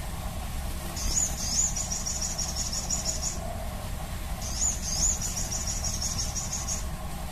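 Crimson sunbird singing two high-pitched phrases, each a few rising notes that run into a rapid trill lasting about two seconds, with a short gap between them.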